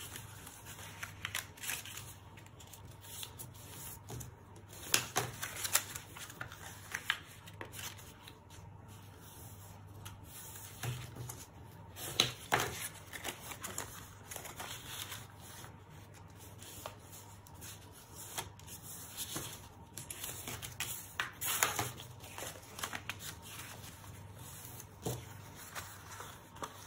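Stiff cardstock being folded and creased by hand along scored lines: rustling and crackling of card, with sharp crinkles at irregular moments.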